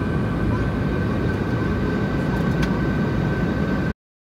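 Jet airliner cabin noise: a loud, steady low rumble with a thin steady whine over it, and a single click about two and a half seconds in. It cuts off suddenly near the end.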